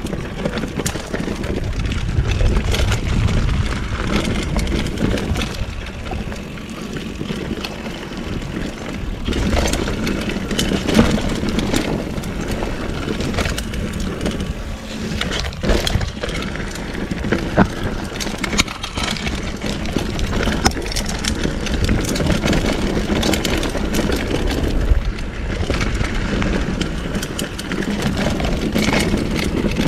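2015 Giant Trance full-suspension mountain bike being ridden over a rocky dirt trail: a steady rumble of tyres on loose stones and dirt, broken by frequent sharp rattles and knocks as the bike bounces over rocks.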